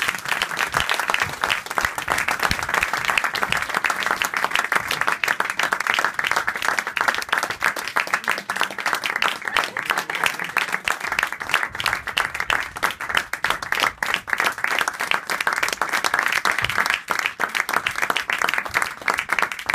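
Audience applauding: steady, dense clapping from many hands that keeps up without letting off.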